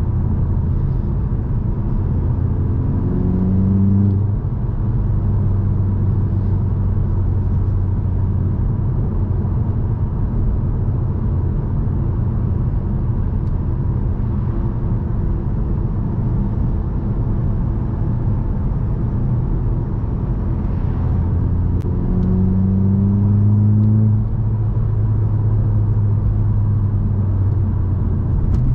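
Stage 2 remapped VW Scirocco on the move: a steady engine and road rumble, with the engine note rising under acceleration twice, about three seconds in and again a little past twenty seconds in.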